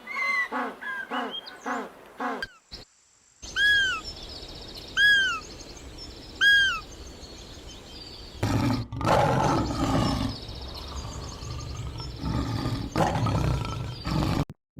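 Animal calls in several short cut-together clips: first a quick series of short pitched calls, then three loud arched whistle-like calls over high chirping birds, then rough, noisy calls in the second half.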